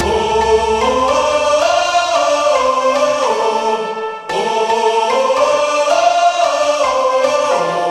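Slow background music of held chords with no beat, breaking off briefly about four seconds in and then resuming, and starting to fade near the end.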